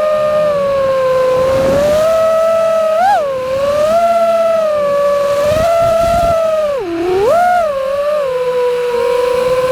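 FPV quadcopter's brushless motors whining steadily, the pitch rising and falling with the throttle. There is a short upward blip about three seconds in, and near seven seconds the pitch drops sharply on a throttle chop and then climbs back.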